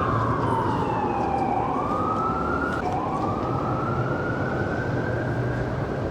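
Emergency vehicle siren wailing in slow sweeps: the pitch falls, rises again, cuts out briefly about three seconds in, then climbs and holds high. Steady low street rumble underneath.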